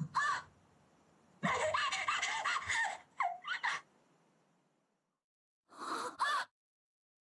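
A voice actress's excited, breathless gasps and short voiced breaths, acting a character's joy and excitement at a reunion through breathing alone. A quick burst at the start, a dense run of gasps over the next couple of seconds, a pause, then two more near the end.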